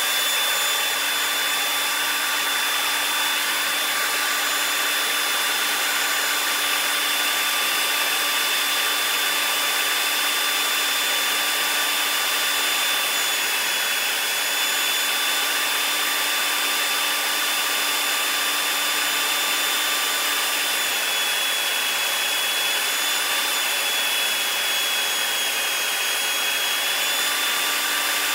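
Makita 9401 belt sander running steadily with a high whine over an even abrasive hiss, a chisel held against its 120-grit silicon carbide belt to grind the bevel. For several seconds late on the whine sags slightly in pitch, as the motor is loaded.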